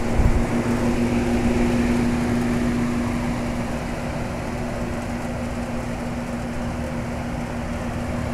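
York Champion IV "Tombstone" central air-conditioner condensing unit, circa 1975, running steadily: a constant hum over an even rush of fan air. The unit is fully functional and running without problems.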